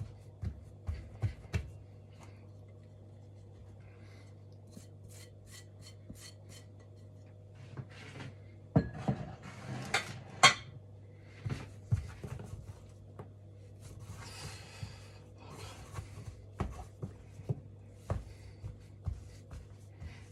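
Kitchen handling sounds of dough being mixed: scattered knocks and clicks of a bowl and utensils, with scraping and rubbing, loudest about halfway through, over a steady low hum.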